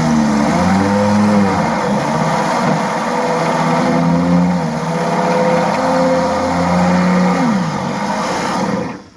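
A drill spins a Mac Tools 3/8-inch spot weld cutter through a spot weld in sheet metal. The motor's pitch sags and recovers as the cutter bites, and it stops suddenly near the end.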